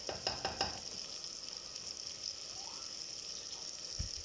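Onions and ginger-garlic paste sizzling steadily in hot oil in an aluminium pot, with a few clicks of a spoon against the pot in the first second. Two dull low thumps come near the end.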